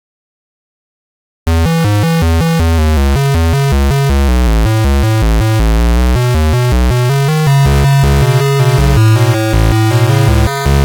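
Emergency-alert alarm music: loud synthesizer notes stepping quickly up and down over a heavy pulsing bass, starting after about a second and a half of silence.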